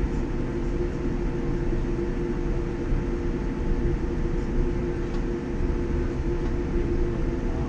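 Cabin noise inside a Boeing 787-9 taxiing: a steady low rumble with a steady hum over it.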